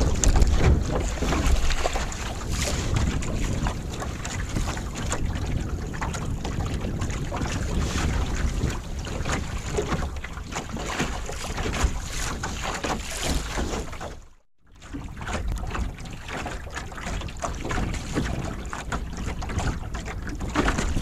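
Strong wind buffeting a smartphone microphone fixed to a small sailboat's gunwale, a heavy rumble, with water rushing and slapping along the hull as the boat sails fast. The sound drops out briefly about two-thirds of the way through.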